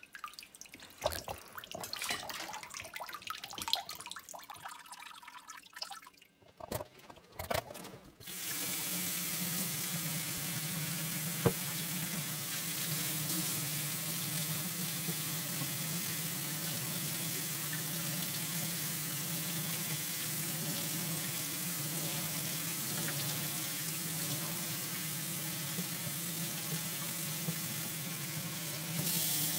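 Small splashes and drips as a radiator is handled in a tub of soaking liquid. About eight seconds in this gives way to a tap running steadily into a stainless steel sink as water is flushed over and through the radiator.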